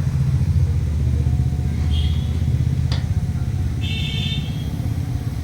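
A motor runs steadily with a low, fluttering rumble. Two short high-pitched sounds come about two and four seconds in, with a sharp click between them.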